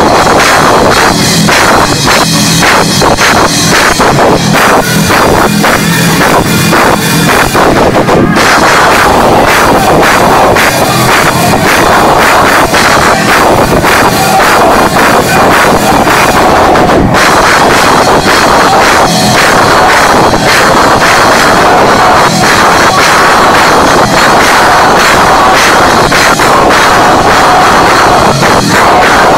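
Live band playing loud, distorted music with drums throughout, recorded so loud that it runs at full scale.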